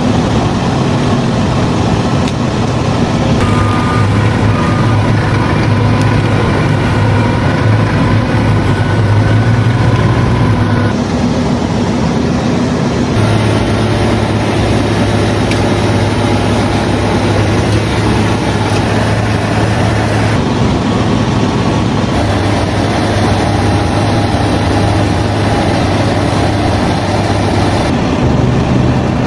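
Heavy diesel machinery engine running steadily with a deep hum, its tone changing abruptly several times.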